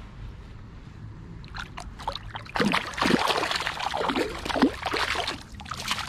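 A hooked trout splashing and thrashing at the water's surface close at hand, a run of quick loud splashes starting about two and a half seconds in over a low steady river background.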